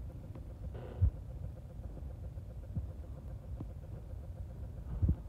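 Low steady hum and rumble with a few soft, low thumps, about a second in and again near the end, from instruments and an amplified bass being handled just before playing.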